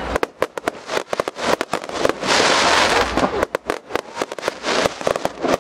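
Fireworks crackling: a rapid, irregular run of sharp pops from crackling spark bursts, thickening into a dense continuous crackle a little over two seconds in.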